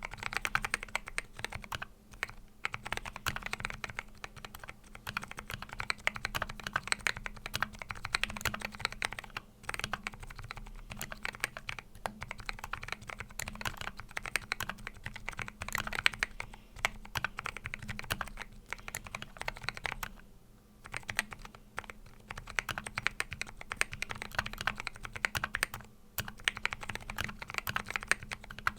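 Continuous fast typing on a custom 60% mechanical keyboard with lubed Zealios 62g tactile switches and MDA Big Bone keycaps in an aluminium case: a dense run of keystroke clacks, with brief pauses a few times.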